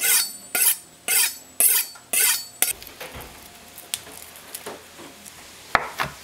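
Steel kitchen knife being sharpened, about six scraping strokes at roughly two a second. Then faint small clicks and rustles of garlic cloves being peeled, and one sharp knock of the knife on a wooden cutting board near the end.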